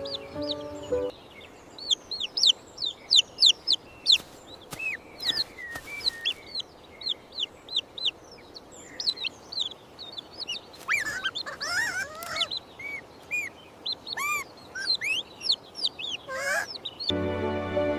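Birds chirping, a busy stream of short, high chirps with some lower calls in the middle stretch. Background music stops about a second in and comes back near the end.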